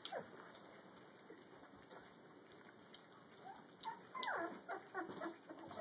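Very young puppies eating from a food pan: faint lapping and scuffling, then from about four seconds in a run of high squeaks and whines, several sliding down in pitch.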